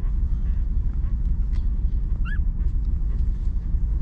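A nursing puppy gives a short high whimper, two quick squeaks about two seconds in, over a steady low rumble and faint scattered clicks.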